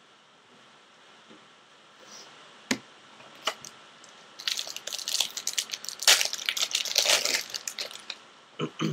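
Foil trading-card pack wrapper crinkling and crackling as it is torn open and handled, with a couple of sharp crackles first and a dense stretch of crinkling in the second half.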